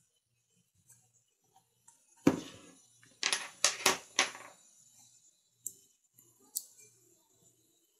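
Small tools and parts being handled on a workbench: a quick cluster of about five clicks and clinks a couple of seconds in, then two light, sharp clicks later on.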